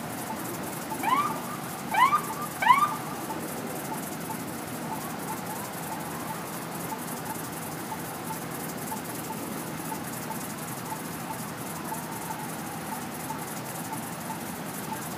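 Three short rising police-siren whoops about a second apart, over the steady noise of passing traffic. A faint regular beep repeats throughout.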